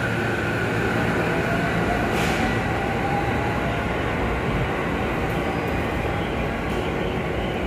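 JR Musashino Line electric commuter train pulling out and rolling away along the platform: steady wheel-and-rail rumble with a faint rising motor whine, easing off slowly as it recedes.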